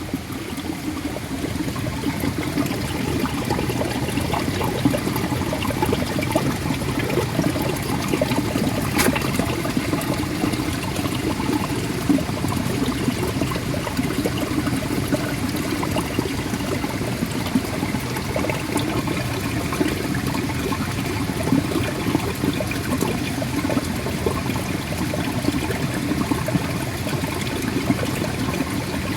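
Spring water welling up out of the ground, bubbling steadily, with a single faint click about nine seconds in.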